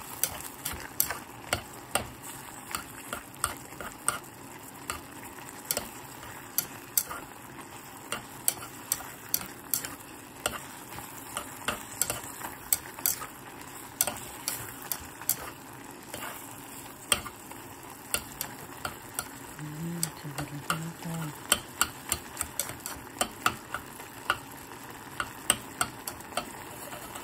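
Sliced pork and onion sizzling as it is stir-fried in a stone-coated pot, with chopsticks clicking against the pot irregularly, one to three times a second.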